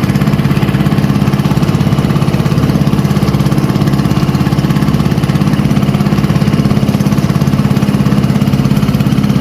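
A small fishing boat's engine running steadily at trolling speed, with an even, unchanging pitch.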